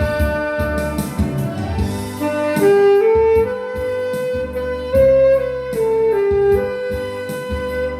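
Alto saxophone playing a slow melody of long held notes over a backing track with bass and a steady drum beat.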